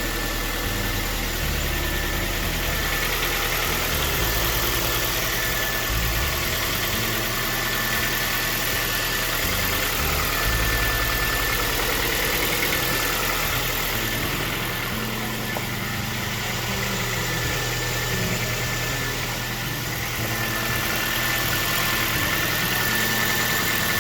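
Kia 1.4 petrol engine idling steadily, just after a new timing chain has been fitted, with a thin steady whine over the running.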